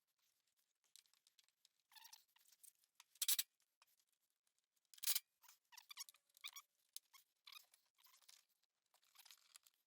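Faint rustling and crinkling from hands handling small parts, with two sharper clicks, about three and five seconds in.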